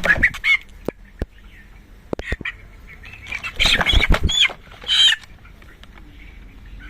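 A young colour-bird chicken squawking and flapping its wings while it is handled onto a scale, with sharp clatter. The loudest squawks come about three and a half to five seconds in.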